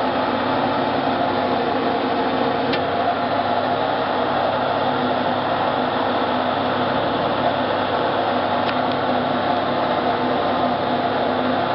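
Steady running hum of a hydraulic press's electric motor and pump, with a couple of faint clicks about three seconds in and again near nine seconds.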